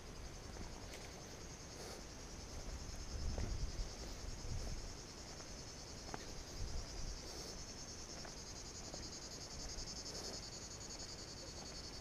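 A steady, high insect chorus, a dense fine-pulsed buzzing trill that grows somewhat louder in the second half. A few low thumps come about three to five seconds in and again near seven seconds.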